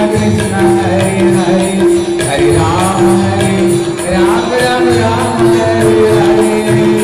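Devotional kirtan music: a steady beat of jingling hand percussion over held instrumental tones, with voices singing at times.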